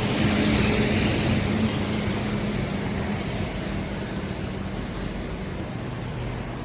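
Outdoor road traffic: a motor vehicle's engine hum with tyre and road noise, loudest about a second in and slowly fading as it passes.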